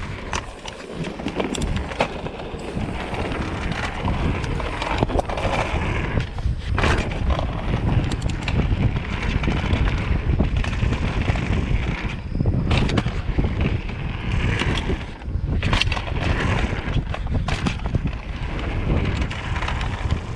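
Mountain bike rolling fast down a dirt trail: a steady rumble of tyres on dirt and wind on the microphone, with sharp knocks and rattles from the bike as it hits rocks and bumps.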